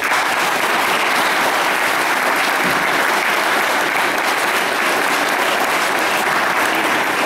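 Church congregation applauding, breaking out all at once and keeping up a dense, steady clapping.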